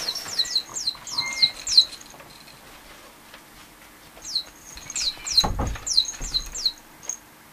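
A run of quick high chirps, each sweeping downward, then a pause and a second run. A dull low thump sounds about five and a half seconds in.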